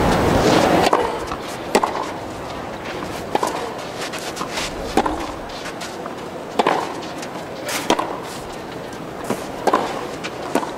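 Tennis rally: rackets striking the ball back and forth, a crisp hit about every second and a half. Applause dies away about a second in.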